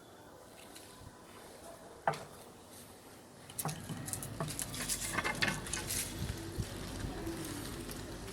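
Tree branches and leaves crackling and snapping while a tree is cut. There is one sharp crack about two seconds in, then from about halfway a run of irregular cracks and rustling.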